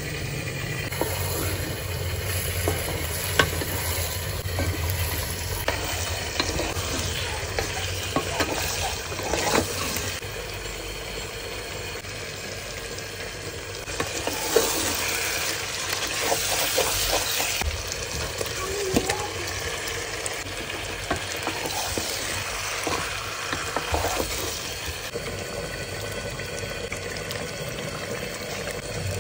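Chicken wings frying in oil and spiced masala in a pot, sizzling steadily, while a spatula stirs and scrapes against the pan with small clicks. The sizzle swells louder for a few seconds about halfway through and again later.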